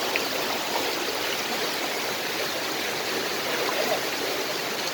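Mountain stream water rushing steadily, an even wash of sound.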